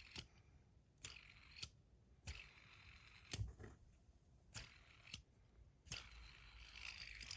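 Bar fidget spinners flicked by hand again and again, each flick a sharp click followed by a faint whirring hiss as the bearing spins down.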